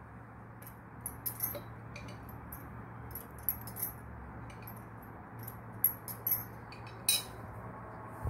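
Scattered faint light ticks and clinks over a steady low hum while cooking oil heats in a nonstick frying pan on the stove.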